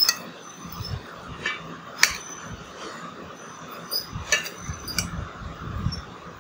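A metal spoon clinking against a plate as boiled green chillies are spooned onto it: about four sharp, separate clinks with soft handling sounds between them.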